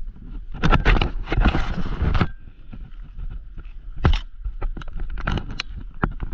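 Mountain bike running down a rough bike-park trail: tyres crunching and rattling over dirt and stones, with many sharp knocks from bumps and a noisy gravelly stretch about a second in.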